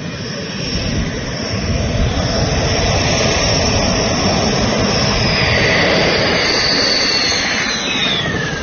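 Dassault Rafale fighter's twin M88 jet engines, a loud roar that swells as the jet comes in to land and nears. Near the end a high whine drops sharply in pitch as it rolls past on the runway.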